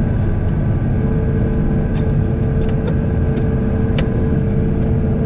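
Tractor engine running steadily under load while dragging an old manure spreader out of packed snow, with a couple of sharp clanks about two and four seconds in.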